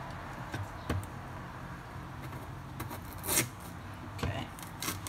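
Kitchen knife cutting a raw carrot on a wooden cutting board: a few soft knocks and one louder crisp cut about three seconds in, then a sharp knock of the blade on the board at the end.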